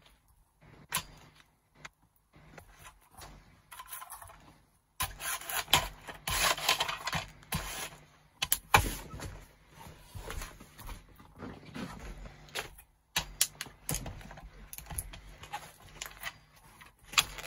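Nike TN sneakers treading on a toy car, cracking and crunching its plastic and metal parts, with the soles scraping and crinkling the paper floor covering. Irregular cracks and scrapes, busiest from about five to eight seconds in.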